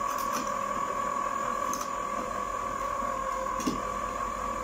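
Electric ice cream maker running and churning with a steady motor hum and whine. A few light clicks and taps sound over it, the loudest a little before the end.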